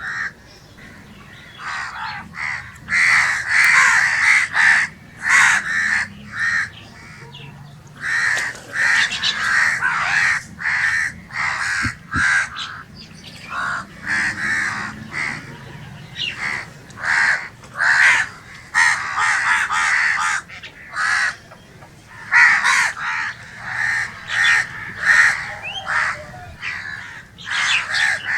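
Crow cawing repeatedly: short, harsh caws in irregular runs with brief pauses between them.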